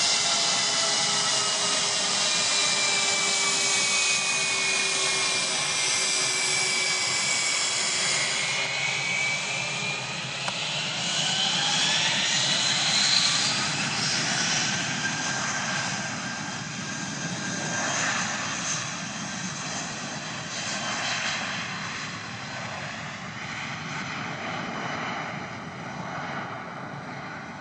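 Jet airliner engines running on a runway: a steady whine with several tones that slowly fall in pitch as the jet moves away. About eight seconds in it gives way to an Airbus A319's engines whining as it taxis, pitch rising for a few seconds, then fading near the end.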